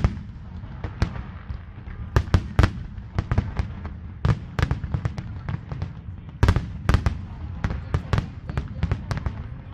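Aerial fireworks display: shells bursting in quick, irregular succession, sharp bangs and cracks several a second over a steady low rumble.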